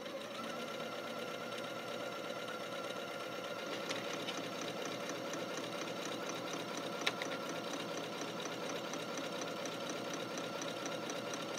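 Janome Skyline S7 computerized sewing machine stitching an automatic buttonhole: a steady motor hum with quick, even needle ticking, and a single sharp click about seven seconds in.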